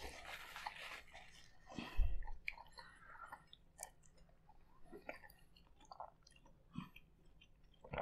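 People chewing soft palitaw rice-flour cakes topped with sugar, coconut and sesame, making small wet mouth sounds and clicks. A paper towel rustles during the first second, and there is a dull thump about two seconds in.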